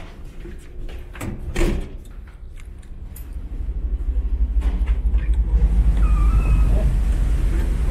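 Door handle and latch clicks with a door knocking shut, then, about three seconds in, a loud steady low rumble of wind on the microphone and the ferry's engines as a door opens onto the open deck.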